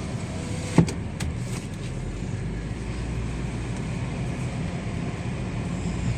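Car engine and road noise: a steady low rumble, with one sharp knock a little under a second in.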